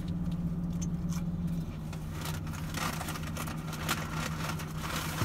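Steady low hum of a parked car's idling engine heard inside the cabin, its pitch stepping down slightly about a second and a half in, with scattered light clicks and rustles.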